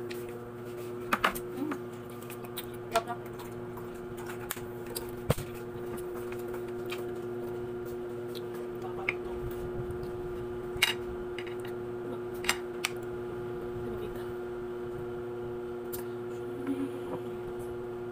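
Someone eating ripe papaya with a spoon: scattered short, sharp mouth and spoon clicks over a steady low hum.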